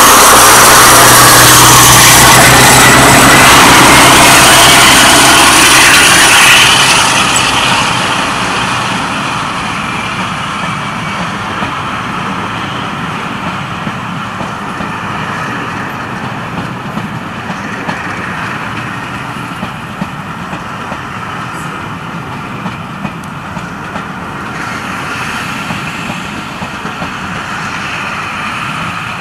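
Class 52 'Western' diesel-hydraulic locomotive with twin Maybach diesel engines passing close by under power, very loud for about the first seven seconds. Then it fades to the steady rumble of the coaches rolling past on the rails.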